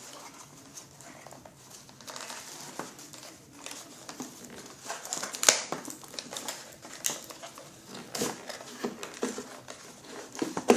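Nerf blaster packaging being handled as its ties are undone: scattered rustling and small clicks, with a sharp knock about five and a half seconds in and another at the very end.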